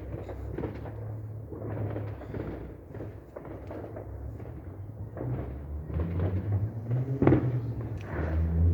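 Fireworks going off: a run of bangs and thuds, with one sharper, louder bang about seven seconds in, over a low rumble.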